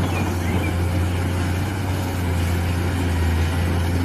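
Diesel engine of a Caterpillar 390D hydraulic excavator running steadily as a low, even drone.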